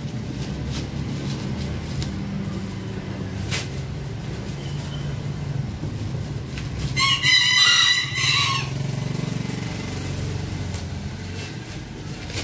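A rooster crows once, about seven seconds in, a single call of about a second and a half. Under it there is a steady low hum and a few light knocks from a cardboard box being handled.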